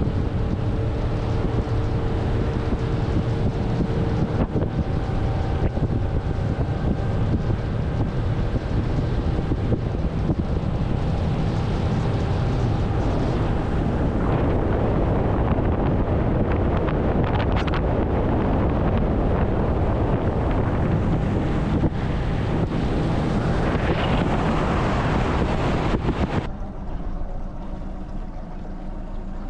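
Motorboat engine running steadily under way, with wind buffeting the microphone and water rushing past the hull. Near the end the rush of wind and water drops away suddenly and the sound turns quieter.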